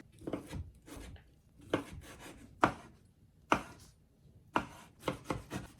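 Knife chopping on a cutting board: separate sharp strokes, about one a second, with a short wooden knock after each.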